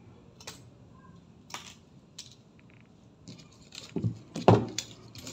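Light clicks and clinks of cut CD pieces being handled on a table, scattered at first, then a busier run of clicks and a couple of louder knocks about four seconds in as a hand presses on the CD-covered dress.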